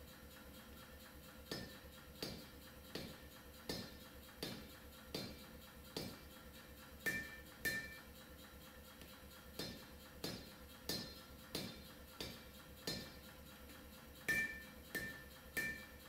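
Hand hammer striking a red-hot two-layer steel knife billet on a vise-held tool, in steady blows about every two-thirds of a second with one short pause midway. Several blows ring briefly with a metallic ping.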